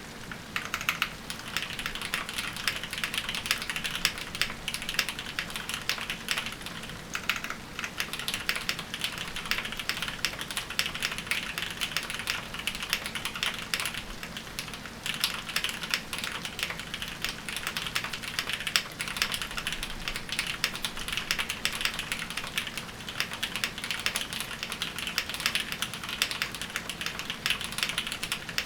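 Steady, fast typing on an Ikki68 Aurora mechanical keyboard with an aluminium plate and Cherry MX Brown switches, keys clicking in a dense continuous stream with brief lulls.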